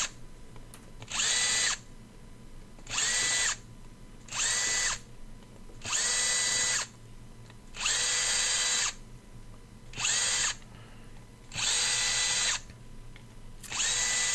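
Power screwdriver run in short bursts, about nine times, each under a second and a second or two apart, its motor whirring up quickly to a steady pitch before stopping.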